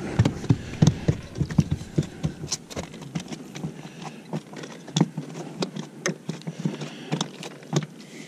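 Irregular clicks and knocks from handling a spinning rod and reel, densest in the first three seconds, then sparser.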